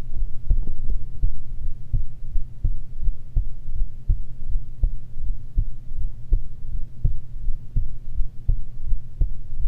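A person's heartbeat recorded close up: steady low thumps at about 80 beats a minute, over a steady low hum.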